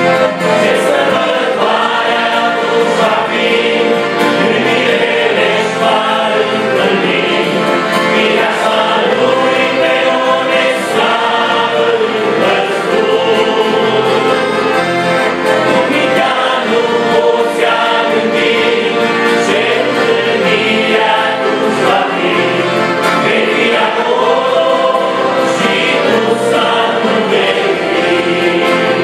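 A group of men singing a Romanian hymn together, accompanied by two piano accordions and an acoustic guitar.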